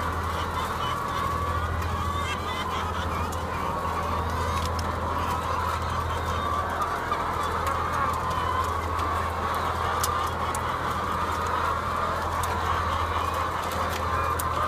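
A large flock of brown laying hens in a shed, a dense, steady chatter of clucking and calls over a steady low hum, with scattered sharp ticks.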